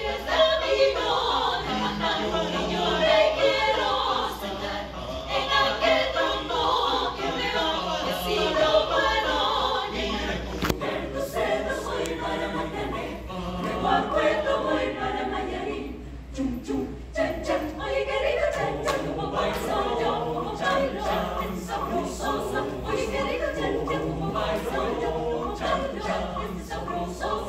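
Small mixed-voice choir of women and men singing a cappella in harmony.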